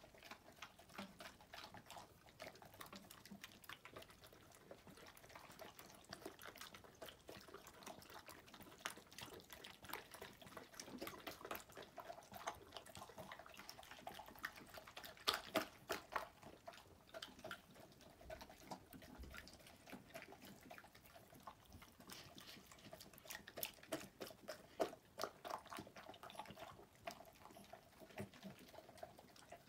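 A golden retriever and a toy poodle eating from bowls: wet lapping, licking and chewing of soft buckwheat jelly, a quick string of small clicks and smacks that grows louder around the middle.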